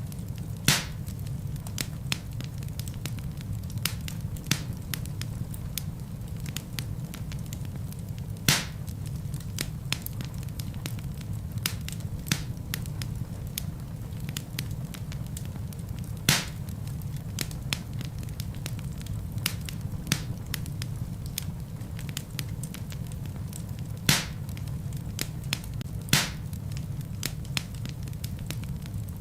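Wood fire burning in a fireplace: a steady low rumble of flames under constant small crackles, with about five sharper pops from the burning logs spread through.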